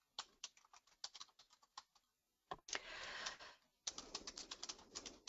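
Computer keyboard being typed on: separate key clicks at first, then a quick run of keystrokes in the second half. A soft, brief hiss comes in the middle.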